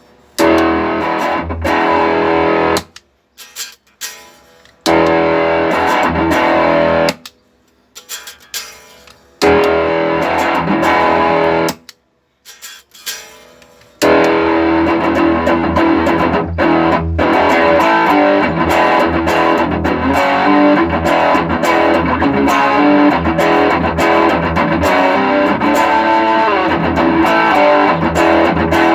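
Electric guitar played through a true-bypass loop switcher and its effects loops, with some distortion, as a sound test of the switcher. Three short passages of about two seconds each stop abruptly into silence, then the playing runs on without a break from about halfway through.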